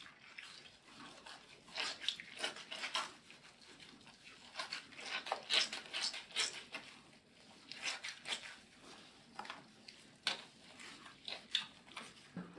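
Hands rubbing and squeezing a wet, shampoo-lathered cat's fur, making irregular wet squishing and rubbing strokes in bursts.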